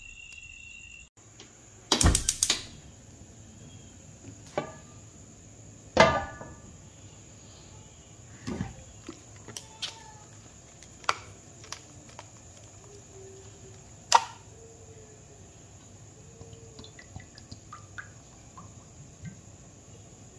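Crickets chirping until a cut about a second in. Then kitchen clatter: a quick run of clicks about two seconds in, followed by scattered single knocks and clanks of cookware on a gas stove, one of them with a short metallic ring.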